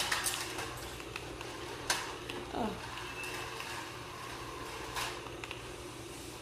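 A few sharp knocks over a low steady hum, with a short spoken "oh" about two and a half seconds in.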